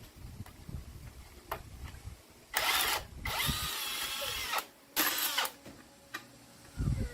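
Handheld power tool, drill-like, run in three short bursts, the middle one the longest, its motor whine bending in pitch as it speeds up and slows.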